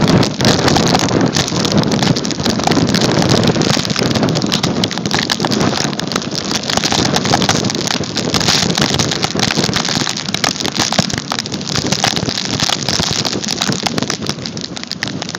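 Dog sled running fast over snow: a steady rushing scrape from the runners, with wind buffeting the microphone and a fine crackle throughout.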